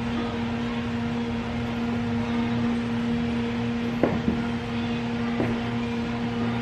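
Steady machine hum with a clear, unchanging tone, broken by two short knocks about four and five and a half seconds in.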